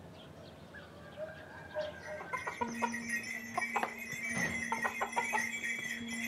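Faint outdoor ambience with a few short bird calls. About halfway in, a steady sustained tone and quick metallic clinking come in and grow louder as background music fades in.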